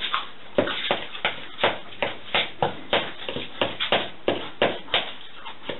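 Wooden spatula stirring and working a minced pork and cabbage dumpling filling in a mixing bowl: an irregular run of scrapes and taps against the bowl, roughly three a second.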